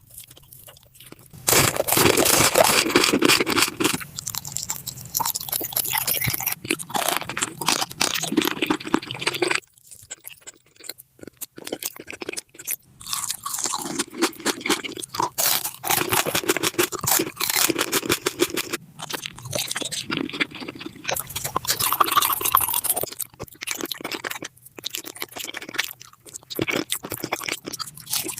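Close-miked crunchy chewing and biting of food, mukbang style, in bursts broken by short pauses.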